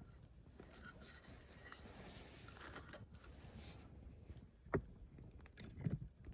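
Wood fire burning in a fire bowl, crackling softly with scattered small pops over a low rumble of flame, and two louder pops in the second half.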